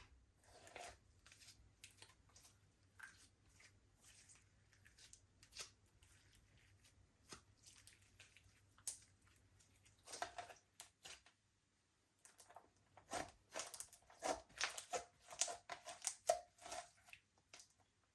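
Slime being squished and kneaded by hand: soft sticky squelches and crackles. They are sparse at first, then come thick and fast in the second half after a short pause.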